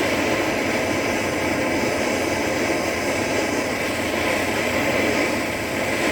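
Blowtorch flame burning with a steady, loud hiss while it melts chunks of solder.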